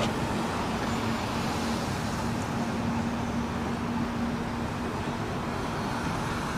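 City street traffic noise: vehicles running and passing at an intersection, with a steady engine hum over an even rumble of road noise.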